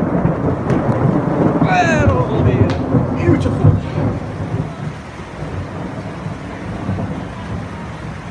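Thunder from a close lightning strike, a heavy low rumble that is loudest in the first few seconds and then dies away.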